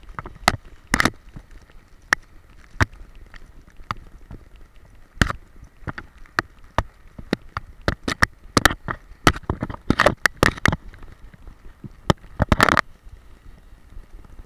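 Irregular sharp clicks and knocks from an action camera strapped to a running boxer dog, the mount and chain collar jostling against it, with a quick clatter of them near the end.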